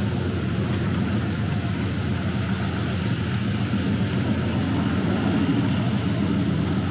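Steady low drone of a running engine, with no breaks or changes in speed.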